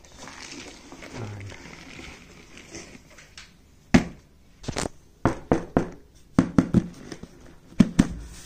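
Fabric lining of a backpack rustling as it is handled, then fingers tapping and knocking on the backpack's hard plastic shell: about a dozen sharp taps in quick clusters from about halfway through.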